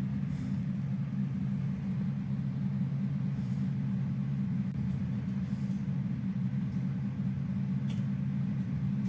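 Steady low droning hum with a faint hiss above it, unchanging throughout.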